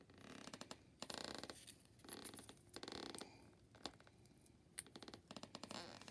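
Faint rustling and scratching from fingers handling and fitting together small paper craft pieces, in a few short bursts with scattered light clicks.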